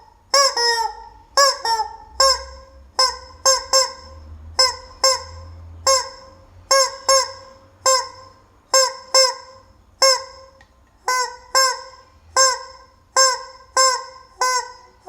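Rubber chicken squeeze toy squawking over and over, each squeeze giving one short, honking squawk, roughly one every half second to second with small gaps between.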